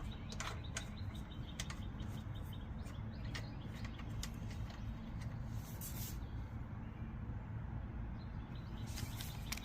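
Faint, scattered small metal clicks of bolts being threaded by hand into a Honda GX160 engine's crankcase cover, over a low steady background hum.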